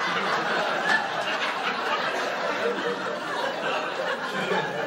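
Audience laughing at a joke, the laughter slowly dying down.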